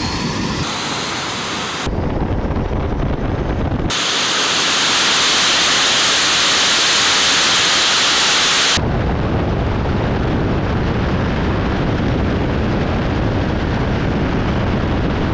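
Three small turbine jet engines running on Jet-A kerosene: a high steady whine over a rushing roar. The sound changes abruptly several times, with a bright hiss for about five seconds in the middle and a deeper roar afterwards.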